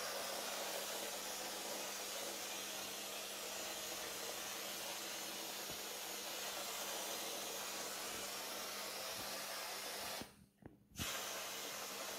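Steady hiss of air and powder from an electrostatic powder-coating spray gun, with a low steady hum underneath. The sound cuts out for under a second near the end, then comes back.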